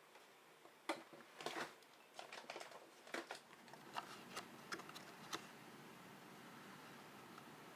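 Light clicks and taps of objects being handled in a kitchen, a dozen or so irregular ones that stop about five and a half seconds in.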